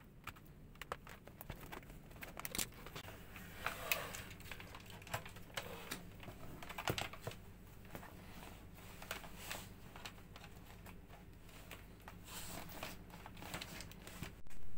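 Handling noise from packing a laptop bag: irregular clicks and knocks of a charger, its cable and a notebook stand against each other, with rustling of the bag's fabric, ending in a louder knock.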